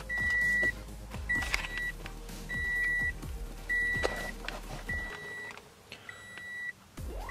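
Electronic beeper sounding six even, single-pitched beeps, each about half a second long, about one beep every 1.2 seconds. Scattered handling knocks from the OBD2 scan tool and its plug can be heard alongside, and a short rising tone comes near the end.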